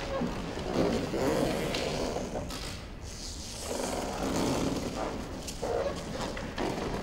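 Electronic drone-and-noise score: a rumbling, roar-like noise that swells and fades every second or two, with hiss above it.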